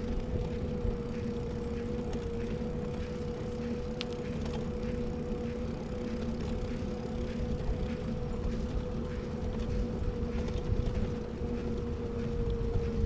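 A steady mechanical hum, one held tone that barely wavers, over a low rumbling noise, with faint scattered ticks.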